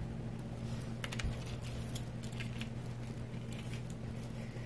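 Faint scattered clicking and rustling of plastic Mardi Gras bead necklaces being handled over a cardboard box, over a steady low hum.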